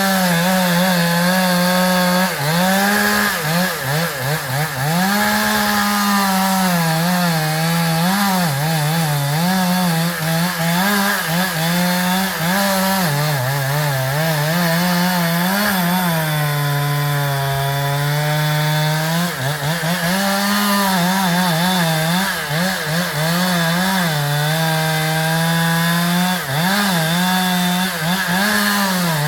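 Two-stroke chainsaw running near full throttle and cutting wood, its pitch repeatedly dipping and recovering as the chain loads up in the cut. A little past the middle it holds a steadier, lower pitch for a few seconds.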